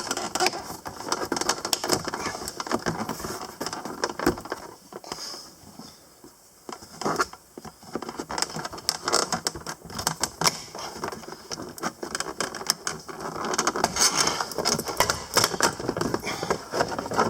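Plastic door-jamb trim panel of a C6 Corvette being pried loose with a thin plastic tool: a run of clicks, crackles and rattles as the trim and its clips are worked free, quieter for a moment about halfway through.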